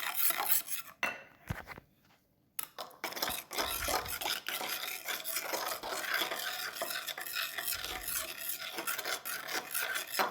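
Egg mixture being stirred in a bowl with a utensil, a quick, steady scraping and clinking against the bowl. It breaks off briefly about two seconds in.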